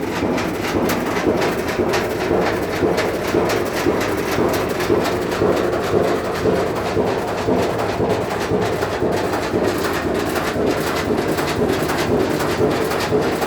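Washing machine running with a continuous fast, irregular rattling and knocking.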